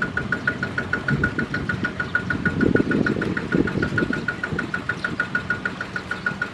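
The single-cylinder diesel engine of a two-wheel power tiller idling with a steady, even knock, about seven or eight beats a second. A few rougher scraping noises rise around the middle as an iron bar is worked through the mud at the wheels.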